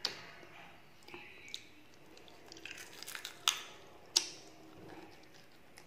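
Close-up eating sounds: a person chewing a mouthful of rice and chicken curry eaten by hand, with wet mouth noises and a few sharp clicks, the loudest about three and a half and four seconds in.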